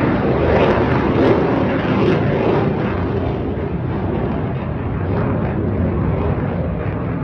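Jet engine noise from T-50B jets of the Black Eagles aerobatic team flying past. It is loudest over the first two or three seconds, then holds steady.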